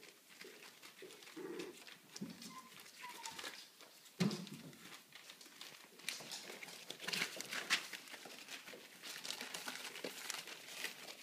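Puppies scrambling and playing on spread newspaper: paper rustling and crinkling under their paws, with small whines and grunts now and then. A sudden bump about four seconds in, then denser crackling of paper.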